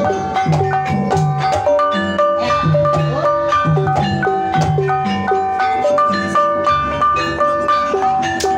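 Banyumasan gamelan playing a tayub gending, led up close by the bonang: bronze kettle gongs struck with padded sticks in a quick, steady run of ringing notes that step between pitches, over regular lower strokes.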